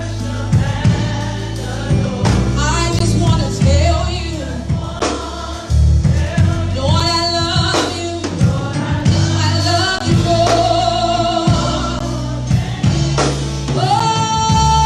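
Gospel worship music: a choir and congregation singing with a live band, steady bass notes under the voices and regular drum hits.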